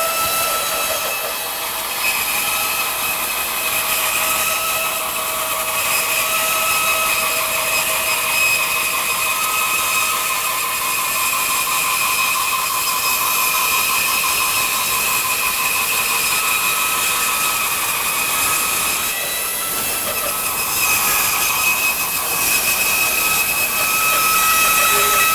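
Rikon 3-horsepower bandsaw (model 10353) resawing a thick slab of hard maple: a steady whine with a high hiss from the cut. About 19 seconds in the tone dips briefly, then steadies again.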